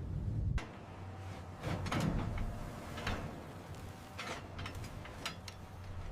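A low rumble that cuts off about half a second in, then a series of short mechanical clicks and sliding whooshes over a steady low hum.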